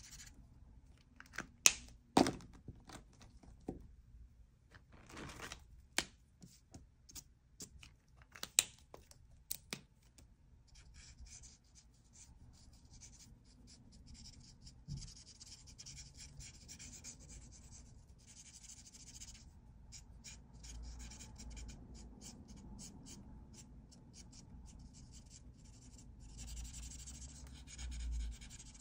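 Marker tip scratching across paper in quick, short strokes while colouring. In the first ten seconds there are several sharp taps, the loudest sounds.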